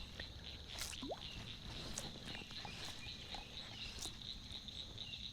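Faint chorus of frogs calling around a pond, with scattered short calls over a steady high-pitched drone.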